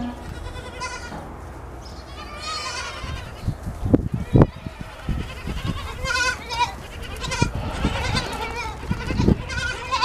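Goats bleating repeatedly in short quavering calls, with a few low thumps about four seconds in and again near the end.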